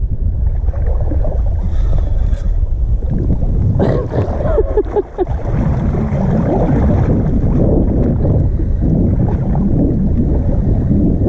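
Wind buffeting the microphone, with water sloshing and splashing against an inflatable float tube. About four seconds in, the water noise grows busier.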